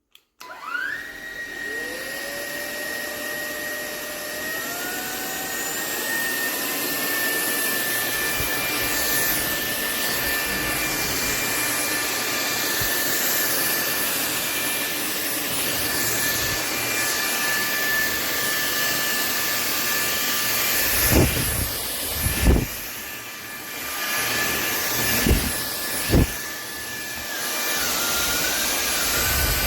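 SMOTURE cordless stick vacuum switching on, its motor whine rising in pitch over several seconds as it spins up, then running steadily with a high whine and airflow hiss. A few loud thumps come in the last third, and the pitch dips and wavers near the end.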